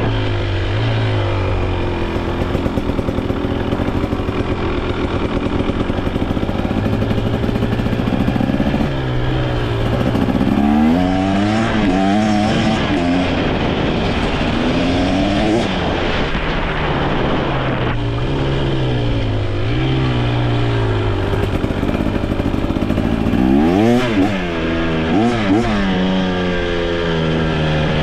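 A small engine running and revving up and down repeatedly, its pitch rising and falling several times.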